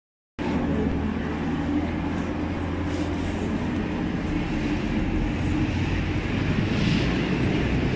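Steady low hum of a train standing in the station, its engine or onboard equipment running at rest, with a hiss that swells near the end.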